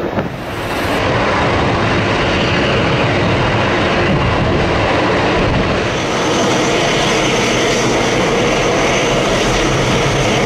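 Boeing 747-400ERF's jet engines running loud and steady, the noise swelling about a second in, with a faint high whine joining about halfway through.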